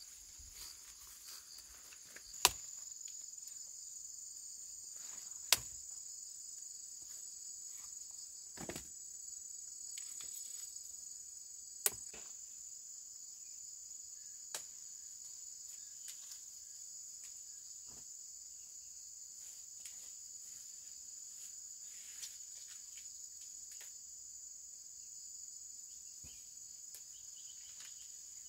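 Steady high-pitched chorus of insects, with a few scattered sharp knocks or clicks, three of them loud.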